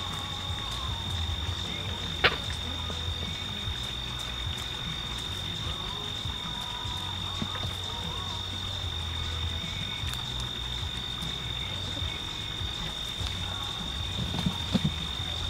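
Outdoor ambience: a steady high-pitched insect drone over a low hum, with faint soft clucking from hens pecking about. A single sharp click about two seconds in and a few soft thuds near the end.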